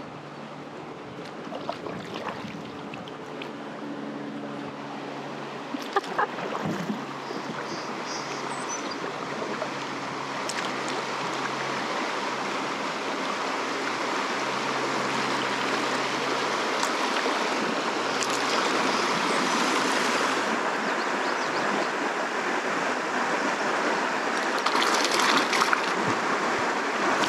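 River rapids rushing, the water noise growing steadily louder as the kayak nears and enters them, with a few sharp knocks about six seconds in and again near the end.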